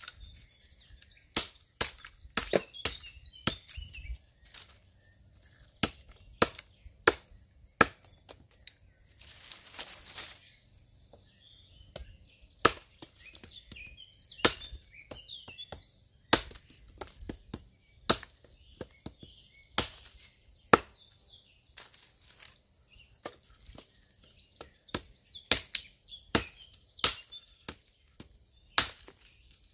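Tetrao Panus hatchet chopping small branches into short lengths against a log: a long series of sharp, irregular chops, some in quick runs of two or three. A steady high-pitched tone runs underneath.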